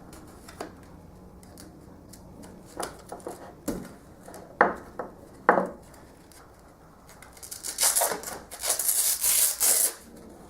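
Handling of a Bosch random orbital sander and its parts: three sharp knocks or clicks around the middle, then a few seconds of loud rasping rubbing near the end.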